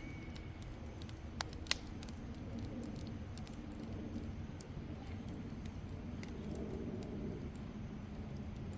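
Wood fire in a Coleman Fire Disc fire pit crackling: scattered sharp pops, the loudest two close together a second and a half in, over a steady low rumble.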